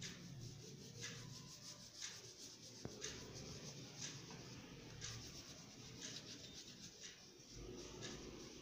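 Pastel crayon rubbing across sketchbook paper in repeated short strokes, a faint scratchy sound recurring about once a second as the pomegranate is coloured in.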